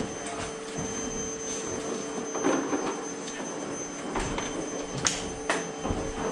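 Scattered knocks and clicks of tools and parts being handled, with one sharp click about five seconds in, over a steady high-pitched hum.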